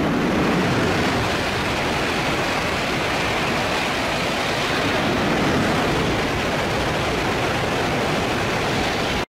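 Tohoku Shinkansen bullet train running through a station at high speed without stopping: a loud, steady rushing noise.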